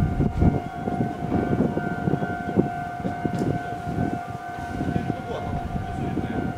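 Tokyo Metro 8000 series electric train approaching, a low uneven rumble of wheels on rails, with a steady high tone held throughout.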